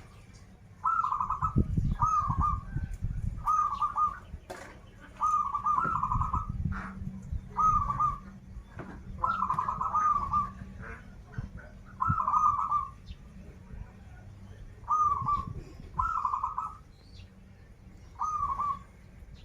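Zebra dove (perkutut) cooing: about a dozen short, trilled coo phrases repeated every second or two, over a low background rumble.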